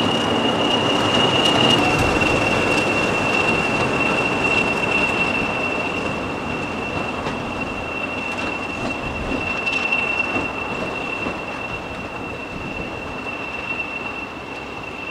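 English Electric Class 40 diesel locomotive running at low speed over pointwork, with a steady high-pitched turbocharger whistle over the engine and wheel noise. It fades gradually as the locomotive draws away.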